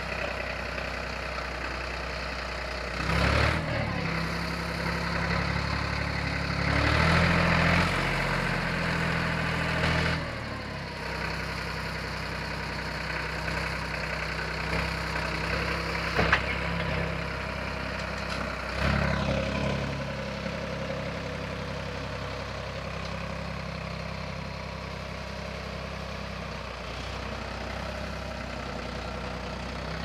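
Sonalika DI-35 tractor's diesel engine running steadily while working a BULL front loader, swelling louder under load three times: a few seconds in, for a few seconds around the eighth second, and near the nineteenth second. A single sharp clank rings out about sixteen seconds in.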